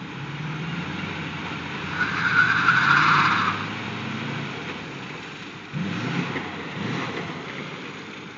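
Lifted Ford F-250 pickup under power during a tow out of a ditch: its engine running under load while its tires spin and scrub, swelling to a loud rushing skid for about a second and a half a couple of seconds in, then easing off and building again near the end. The truck is not yet coming free.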